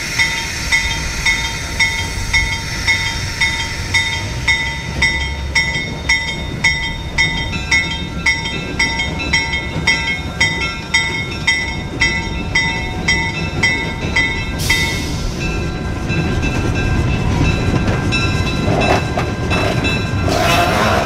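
Railroad bell ringing steadily, about two strokes a second, over the low running sound of a train. A short hiss comes about two-thirds of the way through, and a louder, rougher sound builds near the end.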